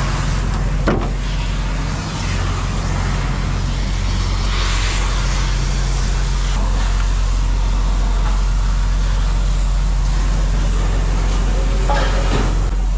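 Vehicle engine running steadily with a low hum, and a single sharp knock about a second in.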